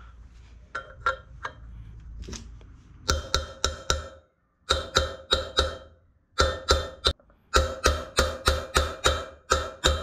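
Hammer striking a socket used as a drift on the outer race of a new wheel bearing, driving it into a motorcycle rear wheel hub. Runs of sharp metallic taps with a ringing note, about two to three a second, start about three seconds in and come in short bursts with brief pauses between.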